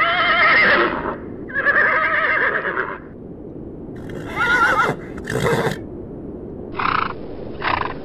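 Horses whinnying: two long whinnies with a shaky, wavering pitch, a shorter third one about four and a half seconds in, then a few brief calls near the end.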